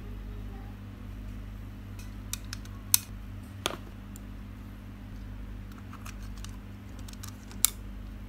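Small hard plastic parts of a DJI Osmo Action action camera, its plastic frame and its battery case, clicking and knocking as they are handled. There is a scatter of sharp clicks, the loudest about three seconds in and another near the end, over a steady low hum.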